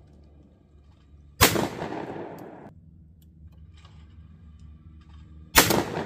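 Remington 1100 12-gauge semi-automatic shotgun firing 8-shot loads at clay targets: two shots about four seconds apart, each followed by an echo that dies away over about a second.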